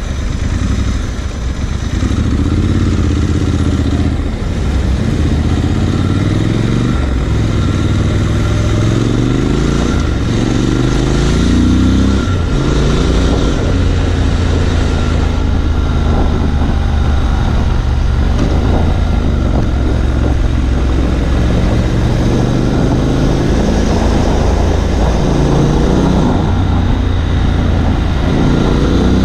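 Triumph Scrambler 1200 XE's 1200 cc parallel-twin engine running under way, its pitch climbing and dropping back several times as the bike accelerates.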